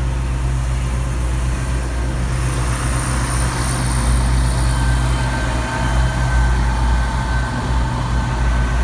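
ScotRail Class 170 Turbostar diesel multiple unit pulling out, its underfloor diesel engines running with a steady low drone, and a thin whine joining in about halfway through.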